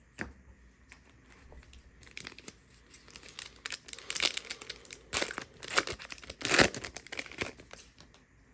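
Crinkling and tearing of a foil trading-card pack wrapper being ripped open, a run of irregular crackly bursts starting about two seconds in and loudest near the end.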